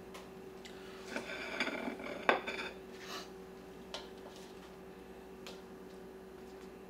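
Serving spoon scooping taco salad out of a stainless steel mixing bowl: lettuce and crushed tortilla chips rustling and crunching, with one sharp clink of the spoon against the bowl a little over two seconds in, then a few lighter taps.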